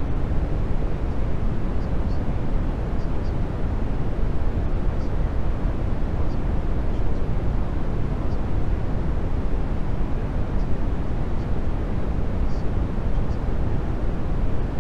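Steady deep rumbling noise with no rhythm or swells, serving as the masking bed of a subliminal recording, with faint short high chirps scattered through it every second or two.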